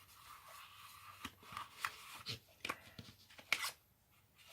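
Card stock being handled and pressed into place: a run of short paper clicks and rustles, the loudest about three and a half seconds in.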